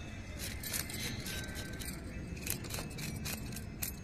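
A knife blade scraping scales off a whole fish: a loose series of short, crisp scratches and ticks.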